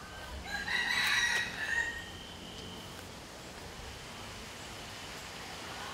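A rooster crowing once, a single crow of about two seconds that starts about half a second in.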